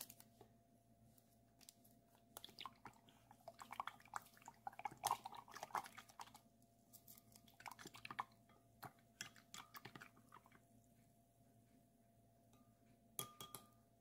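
Wooden chopsticks stirring dry yeast into liquid in a glass measuring cup, clicking and scraping against the glass in quick, irregular taps. The stirring stops for a few seconds before a brief clatter near the end.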